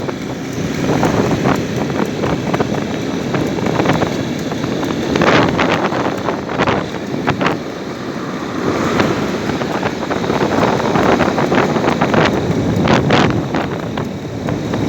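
Wind rumbling steadily across the microphone, with many short crackles and knocks scattered through it.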